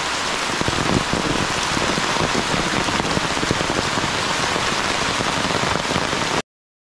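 Heavy rain pouring steadily onto leaves and bare earth: a dense, even hiss full of close drop impacts. It cuts off suddenly near the end.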